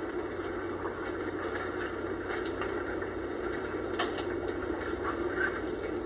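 Food frying in a pot of hot oil on the stove: a steady sizzle with small scattered pops, and a metal utensil clinking against the pot about four seconds in.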